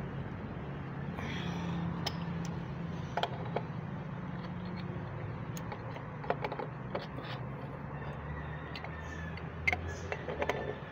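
Sharp metal clinks and taps of a wrench on a water pump's pipe fittings, a few at a time, over a steady low hum.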